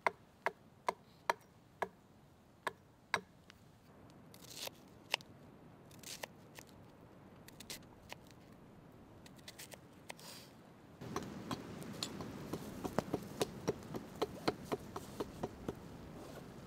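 A small hatchet chopping wood, sharp strikes about two a second for the first few seconds, then quieter knife-on-wood scraping and shaving as a spoon is carved. About eleven seconds in, a louder steady hiss with quick irregular clicks and knocks.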